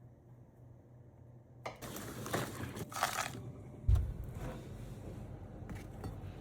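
Kitchen handling noises: a burst of clinking and rustling starting about a second and a half in, then a short dull thump about four seconds in and a few small clicks.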